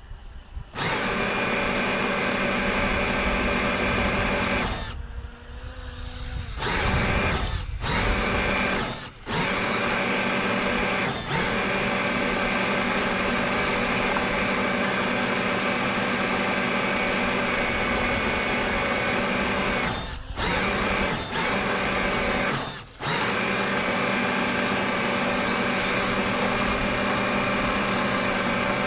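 RC model boat's electric drive motor running under throttle with a steady, many-toned whine. It cuts out briefly several times as the throttle is eased off, the longest gap about five seconds in.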